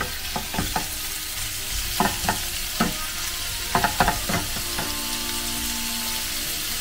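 Raw cubed meat and sliced onions sizzling in hot oil in a non-stick frying pan, stirred with a wooden spatula that scrapes and knocks against the pan in several short clusters.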